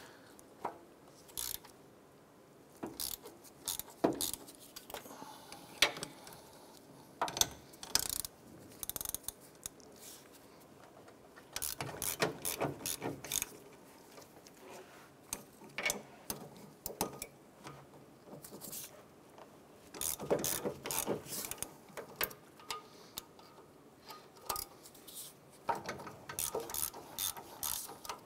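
Hand ratchet clicking in several short bursts as 15 mm bolts are loosened and run out. Scattered single metal clinks fall between the bursts.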